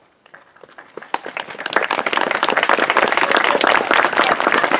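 Audience applauding. A few scattered claps begin about a third of a second in and swell into full, steady applause by about two seconds.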